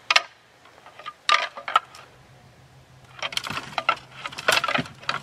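Hard objects clicking and clinking together in short irregular bursts: a single sharp knock at the start, a few more about a second in, then a denser run of clicks over the last two seconds.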